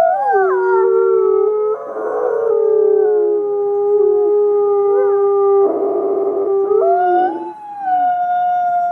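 A pack of wolves howling together: several long overlapping howls at different pitches, some holding steady and others gliding up and down. Rougher, noisier calls break in briefly about two seconds in and again around six seconds.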